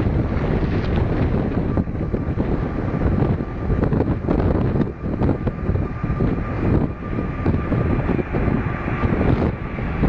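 Airbus A380's four Rolls-Royce Trent 900 turbofans at take-off power during the take-off roll: a steady jet roar with a faint high whine, heavily mixed with wind buffeting the microphone.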